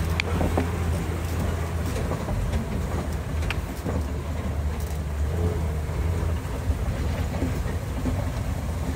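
Safari tour vehicle driving: a steady low engine and road rumble with a few sharp knocks.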